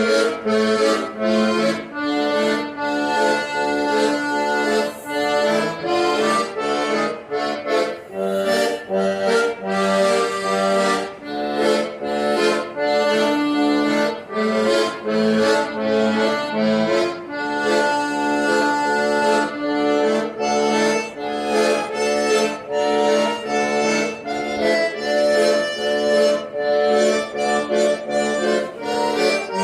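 Accordion playing a lively tune, with a steady bass-and-chord pulse under the melody.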